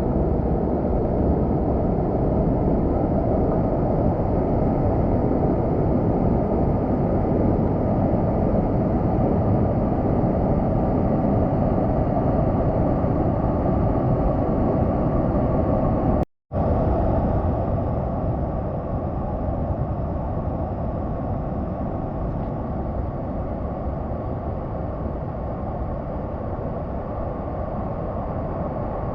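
Waterfall's steady rushing noise, heavy in the low end. It cuts out for an instant about sixteen seconds in and comes back a little quieter.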